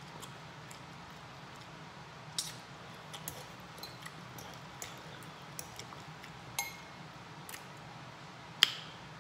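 A metal fork clinking and scraping against a glass bowl as spicy noodles are stirred and picked up, with soft wet eating sounds. Several light clicks, the sharpest ringing clink about a second before the end.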